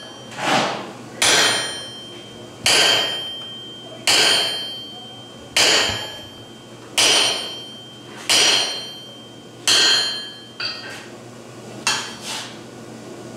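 Sledgehammer blows on a handled hot-cut chisel driven into a glowing iron bar on an anvil, about eight strikes one every second and a half, each with a bright metallic ring. A few lighter metal clinks near the end.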